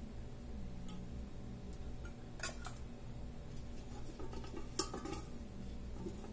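A few sharp metal clinks as a small steel cup is handled and set down against kitchenware: a close pair about two and a half seconds in and another just before five seconds, with lighter taps between. A steady low hum runs underneath.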